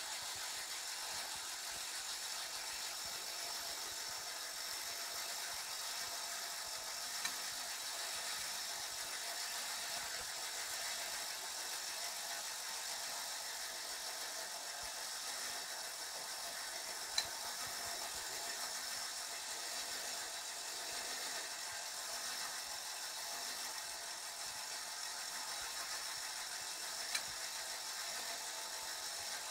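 Clockwork motor of a Schuco Flic wind-up policeman toy running steadily as the figure turns on its tin base, a continuous mechanical whir with three sharp clicks about ten seconds apart.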